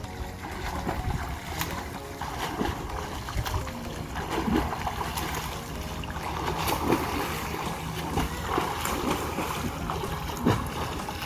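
A swimmer's arms and legs splashing through pool water during butterfly-style drills: an uneven run of splashes over churning water.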